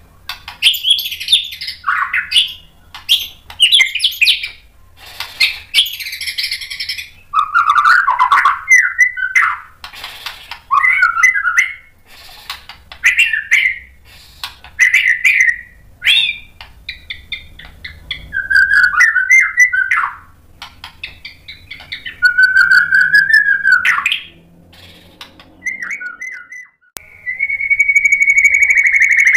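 White-rumped shama (murai batu) singing: a varied run of loud whistled phrases, rising and falling glides and chattering trills, each a second or two long with short pauses between. Near the end the song cuts off and a steady, held whistle-like tone begins.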